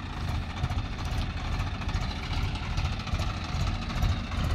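Swaraj tractors' diesel engines running steadily at low revs with an even pulse, pulling driverless in third low gear.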